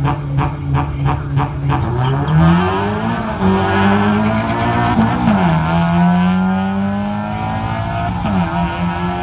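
A 2014 Honda Civic Si's four-cylinder engine is held at steady revs on the start line with a rapid popping stutter. About two seconds in it launches and revs up through the gears, the pitch dropping at upshifts about five and eight seconds in.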